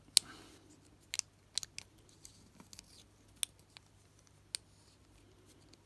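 Case back of a Casio 51QR-19 digital watch being screwed on by hand: faint, irregular small metal clicks and ticks as the threads are turned, the sharpest about a quarter second in.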